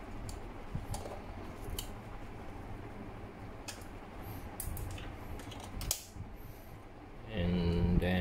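Scattered small plastic clicks and handling noise from a budget RC pistol-grip transmitter as it is turned over and a temperature-sensor plug is worked out of the port on its back. A man's voice, a drawn-out hum, starts about seven seconds in.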